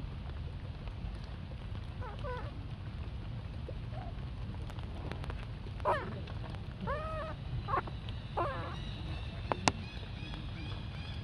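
Baby macaque giving several short calls that rise and fall in pitch, about two, six, seven and eight seconds in, over a steady low rumble. A sharp click comes near the end.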